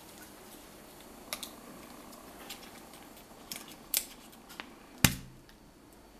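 Handling noise of a metal gas-mask filter canister in latex-gloved hands while its rubber plug is worked off: scattered light clicks and taps, with one sharp knock about five seconds in.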